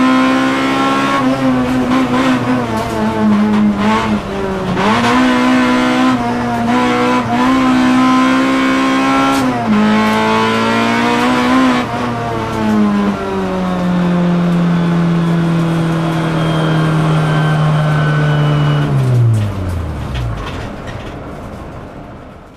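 Toyota Corolla T-Sport's four-cylinder engine heard from inside the cabin, running hard with its pitch stepping down at several gear changes. Later it settles to a lower, slowly falling note, then the revs drop away sharply near the end as the sound fades out.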